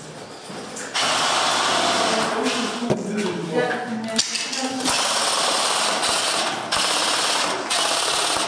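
Airsoft electric rifles firing long full-auto bursts, a rapid mechanical rattle. It starts about a second in and runs in several long bursts with short breaks between them.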